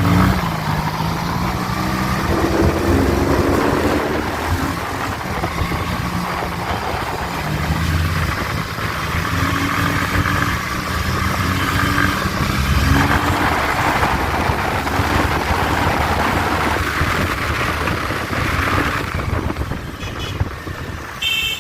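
Regal Raptor Pilder motorcycle's two-cylinder 160 cc engine and exhaust running under way, pulling up through the gears. The pitch climbs and drops back at a shift twice, with wind on the microphone.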